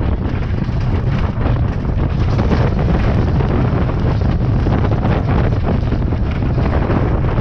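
Loud wind buffeting a body-mounted action camera's microphone during a ride run, with a steady low rumble and clatter underneath. The noise jumps up at the start and then holds.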